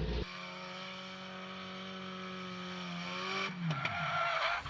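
Drift car's engine held at steady high revs through a slide, the revs falling about three and a half seconds in, with tyre squeal near the end.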